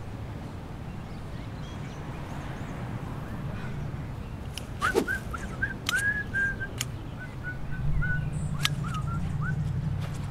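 A person whistling a halting tune in short notes, starting about halfway through, with a few sharp snips of hedge shears.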